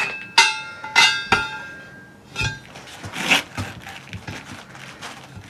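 Metal hand tools, such as tire irons, clanking and ringing against the wheel as the tire is worked off the rim: about five sharp clinks in the first two and a half seconds. A shorter scraping rustle follows a little after three seconds in.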